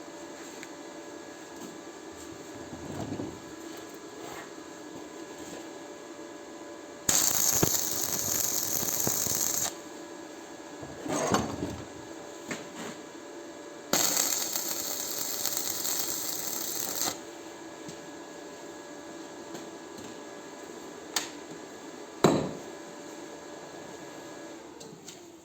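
Stick (arc) welding with a 2 mm electrode: two bursts of hissing arc, each about three seconds long, over a steady hum that winds down near the end. A few sharp knocks fall between the welds.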